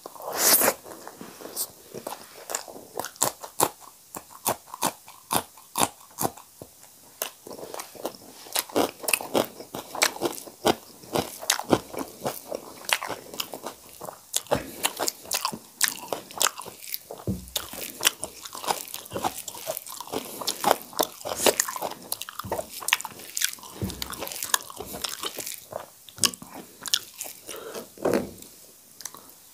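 Close-miked chewing of hand-fed mouthfuls of rice and cooked leafy greens (sag bhat): a dense, irregular run of wet smacks and crunches, with a loud bite just after the start.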